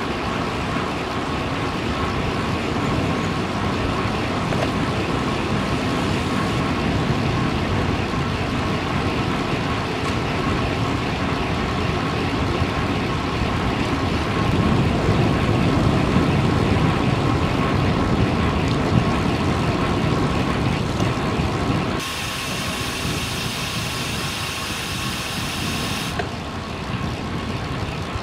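Steady road-traffic noise with motor vehicles and trucks passing on a highway, heard from a moving bicycle, with a low rushing that swells about halfway through. A brighter, high-pitched noise comes in for about four seconds near the end.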